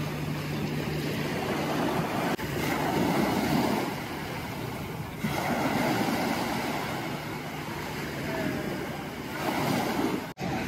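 Small waves breaking and washing up on a sandy shore, with wind on the microphone. The rushing noise changes abruptly about two and five seconds in.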